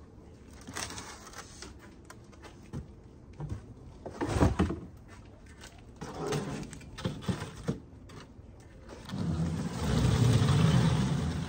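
Handling noise from unpacking plastic plug trays and a cardboard box: scattered knocks and scrapes, one louder knock about four seconds in. Near the end comes a louder rumbling noise lasting a couple of seconds.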